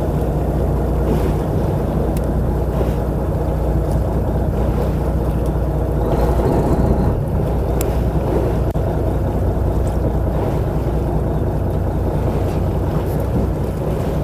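Fishing boat's engine running with a steady low drone, under wind and splashing water.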